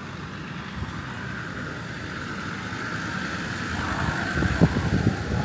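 A motor vehicle's engine growing steadily louder as it approaches, loudest near the end.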